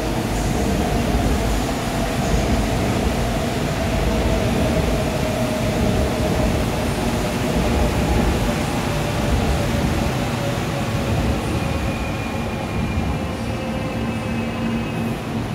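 Seoul Subway Line 4 electric train running through the station: a steady rumble of wheels on rail, with a faint motor whine that slowly falls in pitch.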